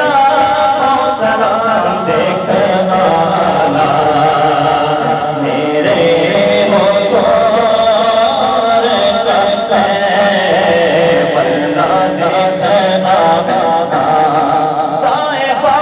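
A man's voice reciting a naat (Urdu devotional poem) into a microphone, in long, wavering held notes with no instrumental accompaniment.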